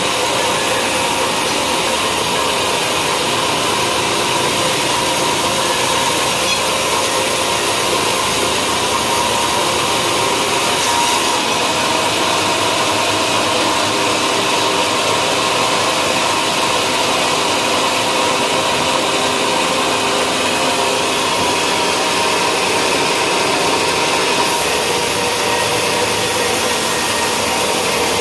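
Sawmill running steadily: a loud, constant mechanical noise with a steady whine. The high hiss thickens about eleven seconds in and eases again a few seconds before the end.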